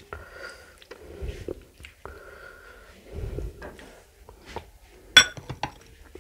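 Soft sounds of fingers mixing rice with poured curry, then a sharp ringing clink about five seconds in as the glass curry bowl is set down on its glass saucer.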